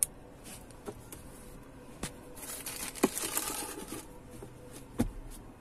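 Plastic bag crinkling and rustling as a hand handles it inside a car's centre-console storage box, with a few light knocks.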